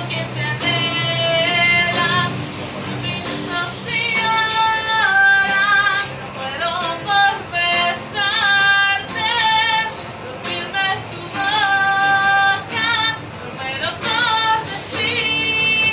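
A woman singing a song with a held, wavering vibrato on long notes, over instrumental backing music.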